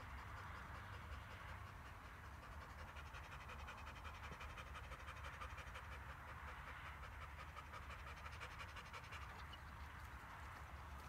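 A Kars shepherd dog panting steadily and faintly, with rapid, even breaths.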